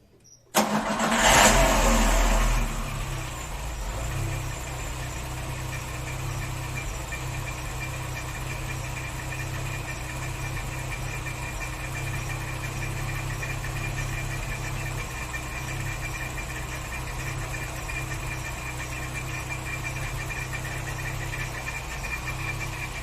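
Volkswagen AP 1.6 engine of a Saveiro G4, running with its valve cover off, starting about half a second in, revving briefly and settling to a steady idle. It idles with a loud abnormal noise that the owner suspects comes from the timing belt or a pulley.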